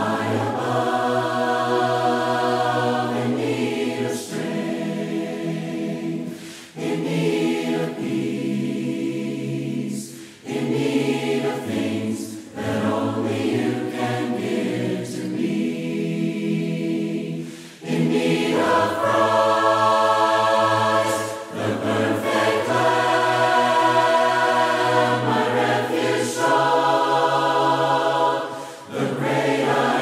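A mixed choir sings a hymn a cappella in four-part harmony. It moves phrase by phrase, with short breaks between lines.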